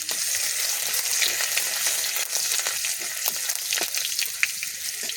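Garlic sizzling in hot oil and caramelized sugar in a pan, with the short scrapes and taps of a spatula stirring it.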